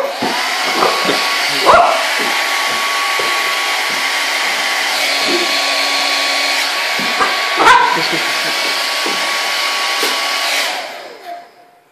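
Hair dryer switched on and running steadily, a rushing blow with a thin whine, then winding down near the end. A dog barks over it twice, about two seconds in and again about eight seconds in.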